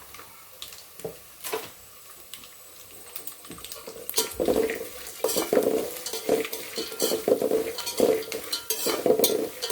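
Spoon stirring and scraping in a pan of dal, onion and curry leaves roasting in oil, with clinks against the pan and a light sizzle. A few separate clinks at first, then steady, quick stirring strokes from about four seconds in.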